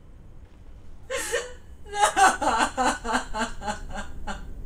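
A woman sobbing: a sharp gasping breath in about a second in, then a run of rapid, halting sobs, about four a second, that fade toward the end.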